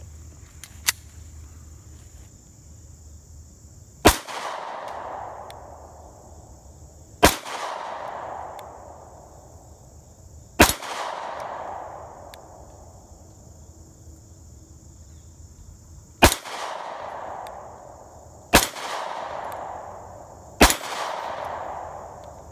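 Beretta Nano 9mm subcompact pistol firing six single shots, emptying its six-round magazine. Each sharp crack is followed by a fading echo, with a longer pause of about five seconds between the third and fourth shots.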